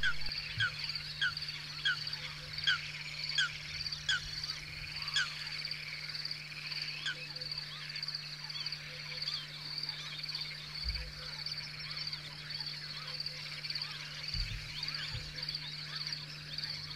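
Wetland frog chorus: a steady, fast-pulsing high trill under a short call repeated about every 0.7 s. The calls are clear for the first five seconds and then grow fainter, over a low steady hum.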